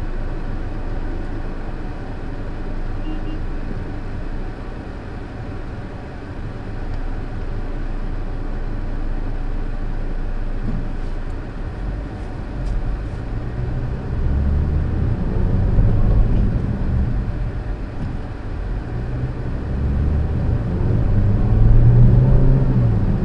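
Car engine and road noise heard from inside the cabin: a low, steady rumble at first, then louder in two swells from about halfway as the car moves off and picks up speed.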